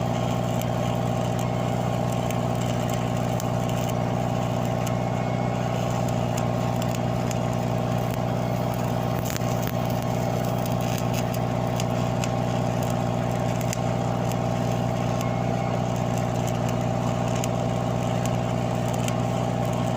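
Engine running steadily at idle, one constant drone that does not change in pitch or level.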